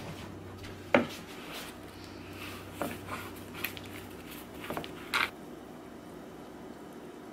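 Handling of a plastic blender cup: it is set down with one sharp knock on a granite countertop about a second in. A few lighter clicks and a brief scrape follow as its screw-on lid is twisted off.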